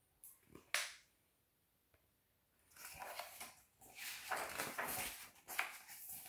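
Picture book being handled: a sharp snap about three quarters of a second in, then, from about three seconds in, uneven rustling of paper pages being turned and handled.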